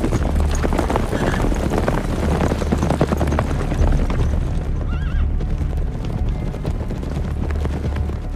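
Hooves of several horses clopping on the ground as mounted riders approach, with a horse whinnying briefly about five seconds in.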